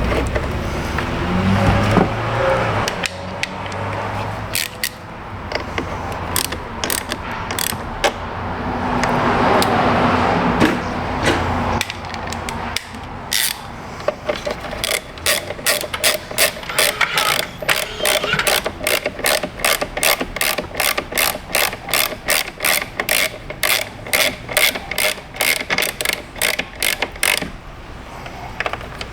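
Hand ratchet clicking as a fastener is run down, with a steady train of about three clicks a second through the second half. Rustling and handling noise from working on the parts comes before it.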